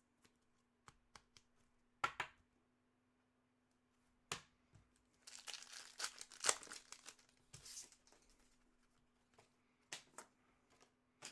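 A foil wrapper from a 2021-22 Upper Deck Series 2 hockey card pack being torn open and crinkled, loudest a little past the middle, with light clicks and taps from the cards being handled.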